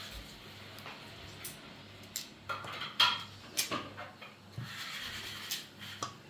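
Scattered clinks and knocks of a knife and cut quince pieces against a stainless steel bowl while quinces are trimmed and chopped, the sharpest pair about three seconds in.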